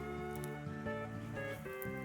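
Background instrumental music: sustained melodic notes shifting in pitch, with a few faint brief clicks.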